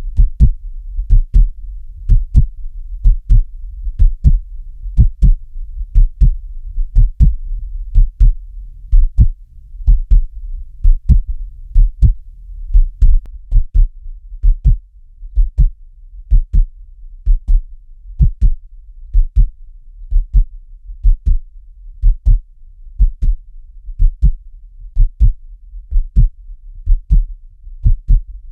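Heartbeat sound: paired lub-dub thumps at an even pace of about one beat a second, over a steady low rumble.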